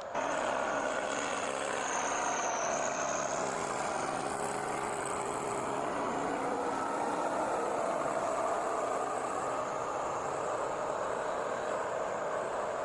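Engine of a heavy logging machine running steadily, starting abruptly at a cut.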